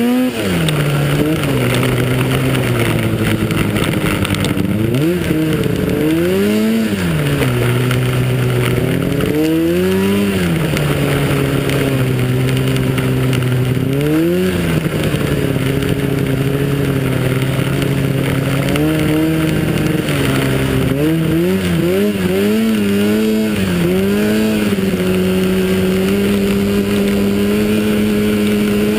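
Snowmobile engine racing on the throttle, its pitch climbing and dropping several times as the rider accelerates and backs off, with steady flat-out stretches between, over a constant hiss of wind and track.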